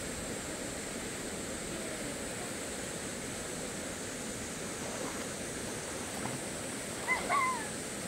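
Steady rush of flowing stream water, with a short high call near the end.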